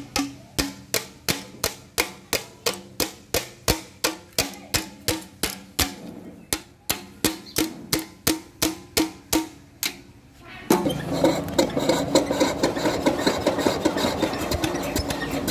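Sharp metal tapping on the engine's valve gear, about three strikes a second. About two thirds through it stops and gives way to a louder, dense clatter as the 12 hp generator engine, its cylinder flooded with rainwater, is cranked over by hand without starting.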